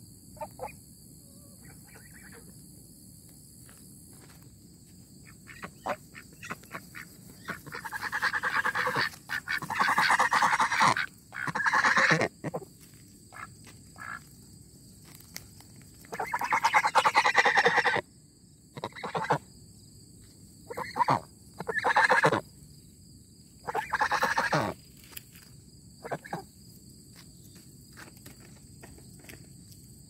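White domestic geese and ducks calling loudly in several bouts of raspy honks and quacks, the longest lasting about two seconds, as the flock finds its hidden keeper.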